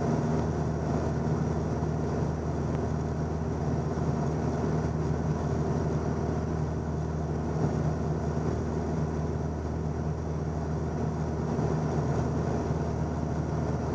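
Steady drone of a 1977 Cessna 172N's four-cylinder Lycoming engine and propeller at cruise power, heard inside the cabin.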